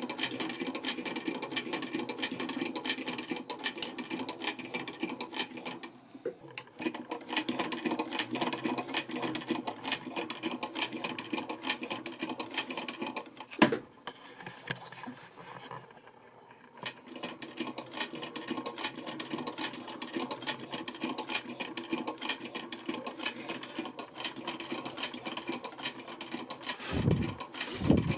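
Black reproduction Flying Man-type sewing machine ('Le Couturier') turned by its hand wheel and stitching: a fast, even clatter of the needle and feed mechanism. It slows or stops briefly about six seconds in and again from about fourteen to seventeen seconds, with one sharp click just before the second stop.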